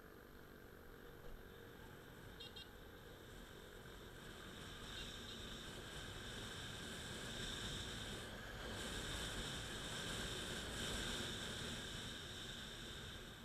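Honda Click 125i scooter under way on a paved road: its single-cylinder engine running with steady wind and road noise, heard muffled from the handlebar camera. It grows louder about halfway through.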